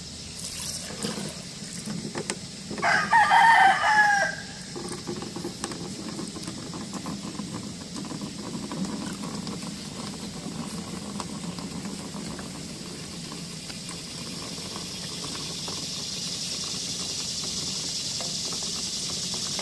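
A rooster crows once, about three seconds in, a loud call of about a second and a half that falls in pitch at the end. Under it runs a steady high chirring of crickets and other insects that grows a little louder near the end.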